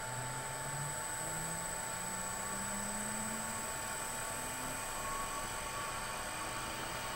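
Three-phase electric motor run by a variable frequency drive, its hum climbing in pitch in small steps as the drive's output is raised from about 20 Hz toward 50 Hz.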